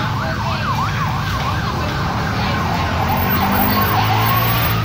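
Emergency vehicle siren on the street, first fast up-and-down yelping sweeps, then a slower rising wail near the end, over a low hum of traffic.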